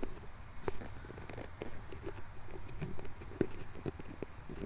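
Irregular light clicks and knocks of handling noise as the camera is moved and settled in place.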